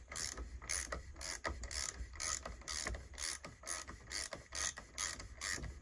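Socket ratchet clicking evenly, about four clicks a second, as its handle is swung back and forth to unscrew the 27 mm oil filter housing cap on a 1.6 HDi diesel engine.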